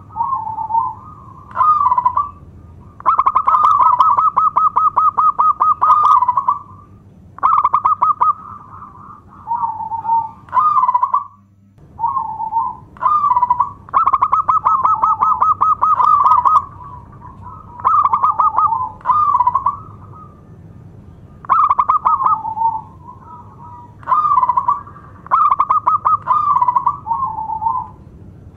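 Local zebra dove (perkutut) singing loudly: repeated phrases of rapid, rolling staccato cooing notes, some long runs and some short groups of coos, with brief pauses between phrases.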